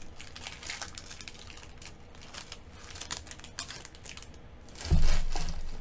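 Pokémon trading cards being handled and flipped through by hand, a run of soft clicks and flicks of card stock. A sudden low thump about five seconds in is the loudest sound.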